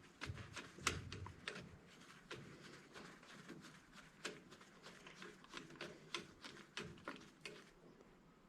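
Irregular light clicks and taps of hand tools and small metal parts being handled while an electric angle grinder is taken apart for scrap, several a second and uneven in loudness.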